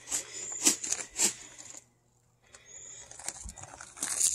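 Footsteps on gravel: three steps about half a second apart, a short pause, then more shuffling steps near the end.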